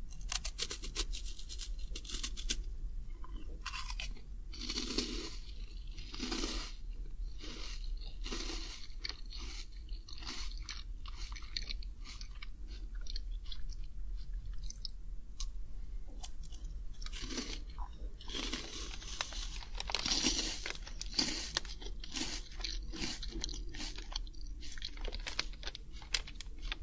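A crisp snack being bitten and chewed close to the microphone, with many sharp crunches that come thicker twice, about five seconds in and again around twenty seconds in.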